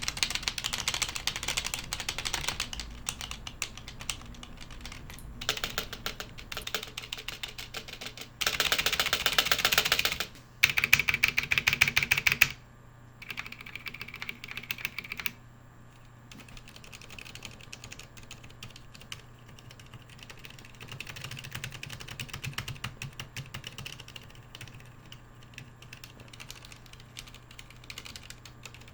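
Typing on a Ducky One 2 mechanical keyboard with Cherry MX Silent Red switches: a continuous patter of damped key presses. Two louder runs of rapid typing come around the middle, followed by lighter, quieter typing.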